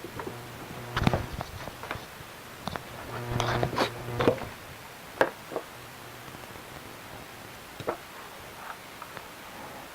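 Scattered clicks, taps and knocks of small tools and a circuit board being handled during desoldering, busiest in the first half, with a brief low hum mixed into a cluster of clicks in the middle.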